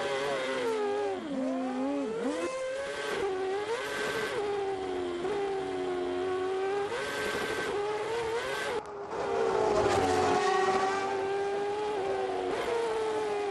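Red Bull RB7 Formula 1 car's 2.4-litre V8 engine running at low speed, its revs dipping and rising with throttle changes. The sound breaks off suddenly about two-thirds of the way through and comes back louder.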